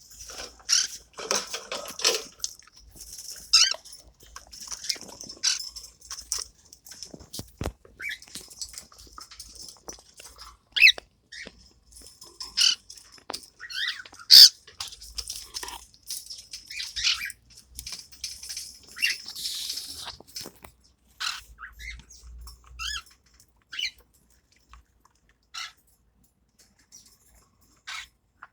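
Baby parrots making short, high squeaks and chirps at irregular intervals, mixed with small scratchy clicks; the calls thin out in the last third.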